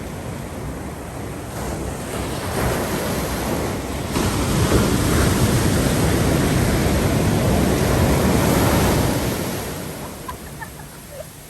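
Ocean surf: a big wave builds and breaks, its rushing noise swelling to a peak in the middle, then fading as the water washes out.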